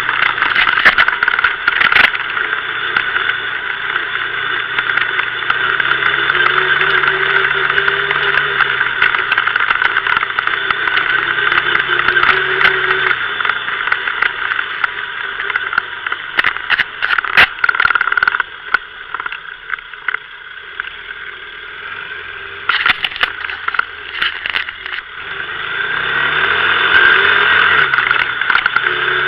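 Kymco MXU 500 quad's single-cylinder four-stroke engine running under way off-road, its pitch rising and falling with the throttle, with frequent knocks and rattles. It drops back to a low, quieter run past the middle, then picks up again near the end.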